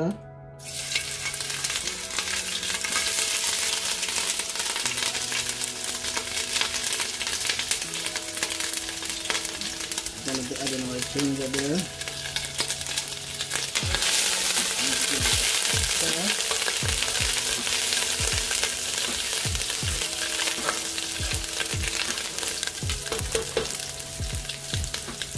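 Minced ginger sizzling in hot coconut oil in a pot, starting suddenly about half a second in as it hits the oil and frying steadily. From about halfway on, a spoon stirring it knocks against the pot now and then.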